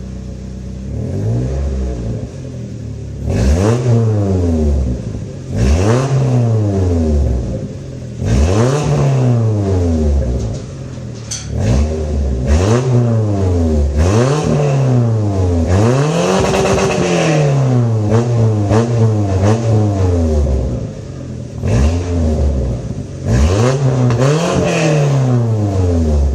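Toyota truck engine revved over and over, about a dozen blips, each rising and falling in pitch over a second or two. It runs through an exhaust whose leaking catalytic converter has been wrapped and patched, and the owner judges that it does not sound too bad.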